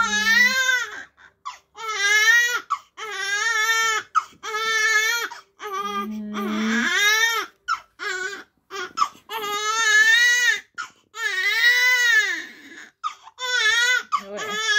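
Newborn baby crying hard: a string of high-pitched wails, each about a second long, broken by short catches of breath.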